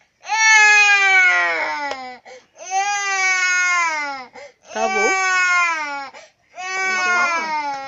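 A young child crying in four long wails, each sliding down in pitch, with short catches of breath between them.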